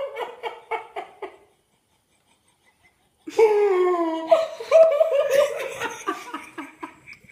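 People laughing in quick pulses, which stop for about two seconds of near silence, then start again with a long falling "haa" and more rhythmic laughter that fades near the end.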